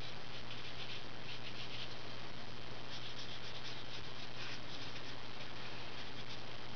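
A Crayola Super Tips felt-tip marker scratching back and forth on paper as an area is coloured in. The strokes come in short runs of quick rubs, the longest from about three seconds to nearly five.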